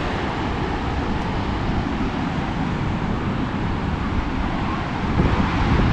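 Steady rushing roar of water pouring over the dam, with wind buffeting the microphone.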